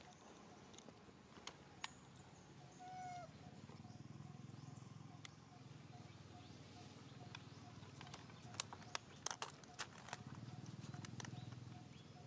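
Faint outdoor ambience: a low steady hum with a faint note repeating evenly about three times a second. A short gliding bird chirp comes about three seconds in, and a quick cluster of sharp clicks follows around nine seconds in.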